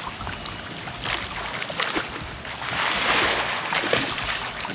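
Pool water splashing and sloshing as children swim and thrash through it, loudest about three seconds in.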